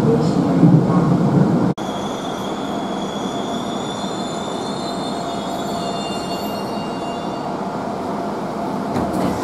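Seoul Subway Line 1 commuter train heard from inside the car, running with a low rumble. After a sudden cut about 1.7 s in comes a steadier, quieter running sound with thin high squealing tones, as the train pulls into a station.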